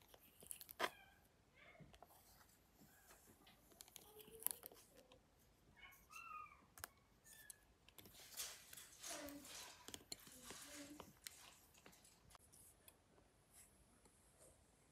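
Faint, scattered taps and scratches of a stylus on a tablet's glass screen.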